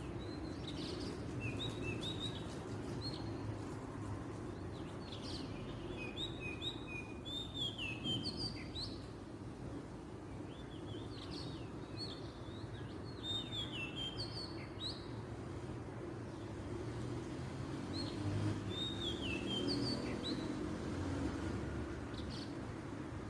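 Oriental magpie-robin singing in bouts of quick, varied whistled phrases with short pauses between them, over steady low background noise.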